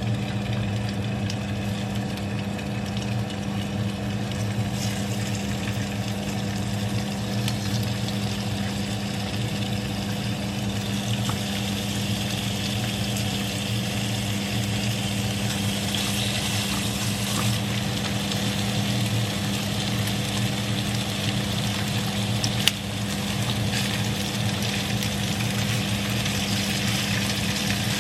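Tocino frying in a pan, a sizzling hiss that grows stronger about halfway through, over a steady low motor hum. A single sharp click near the end.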